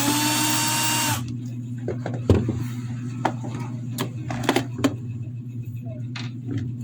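A small electric screwdriver whirs for about a second with a slightly rising whine, then stops, as the Bluetooth speaker's casing is unscrewed. Several sharp clicks and knocks follow as the casing is handled.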